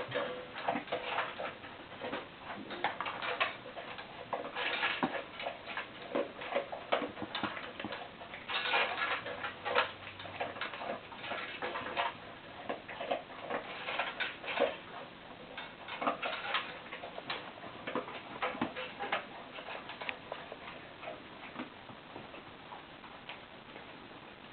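A cat and dogs eating from bowls: quick, irregular crunching and clicking of chewed food and bowls.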